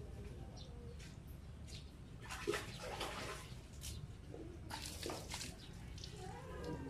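Water splashing on a motor scooter as it is washed by hand, in two short bursts about two and a half and five seconds in.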